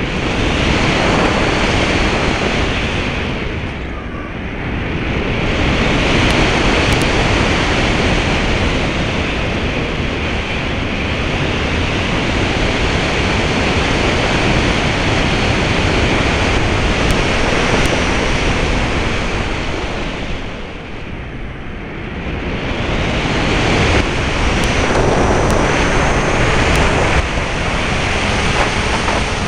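Rush of airflow and propeller noise from an RC model plane in flight, picked up by a camera mounted on the plane with wind buffeting its microphone. The noise eases off briefly twice, about four seconds in and again about two thirds of the way through, then builds back up.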